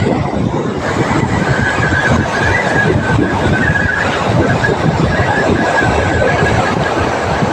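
Spinning reel cranked by hand to wind in line, its gears whirring close to the microphone, with a thin steady whine from about a second in. Wind and surf run underneath.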